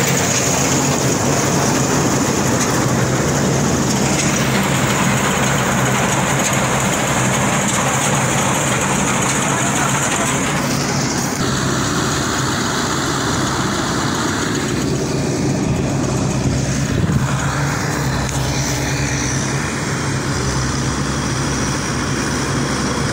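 Tracked combine harvester running: its diesel engine and threshing machinery make a steady, continuous drone, with the higher part of the noise changing about halfway through.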